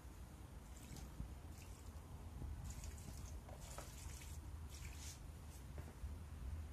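Faint water trickling and splashing onto the soil of a potted tomato seedling in several short pours: its first watering after transplanting.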